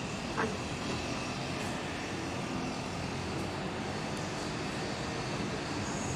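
Steady, even rumble of distant engine noise outdoors, with one short high chirp about half a second in.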